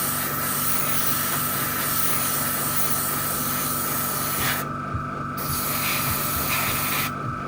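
Airbrush spraying primer: a steady hiss of air and paint that cuts out briefly twice, about five seconds in and near the end, with a steady hum underneath. It is spraying quite slow, which the modeller puts down to the air pressure being set too low.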